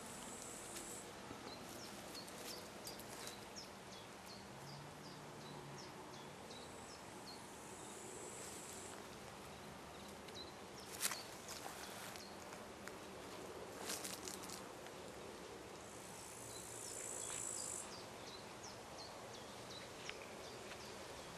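Faint summer outdoor ambience: insects chirring in high bursts of about two seconds, three times, over rows of short, quick high chirps. Two sharp clicks stand out, about 11 and 14 seconds in.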